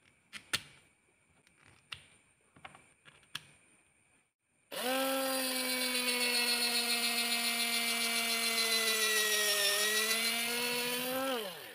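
Small electric screwdriver running for about seven seconds, driving a screw into the mini drill's motor housing; its steady whine sags in pitch briefly under load near the end, then winds down as it stops. Before it, a few light clicks of small parts being handled.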